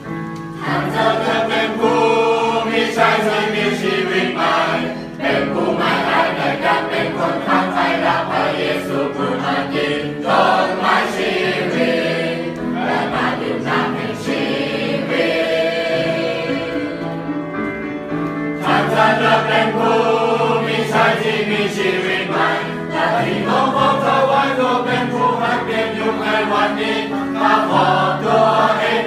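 A mixed group of young men and women singing a hymn together as a choir.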